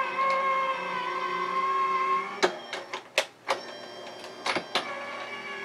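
Sizzix Vagabond electric die-cutting machine running, its motor giving a steady hum while it rolls the die and paper through. The hum stops about halfway, followed by several sharp clicks and knocks, and starts again near the end.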